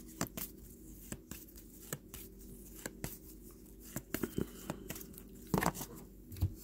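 Topps trading cards being flipped through by hand: a string of short flicks and snaps of card stock sliding past one another, with a few louder clusters in the second half.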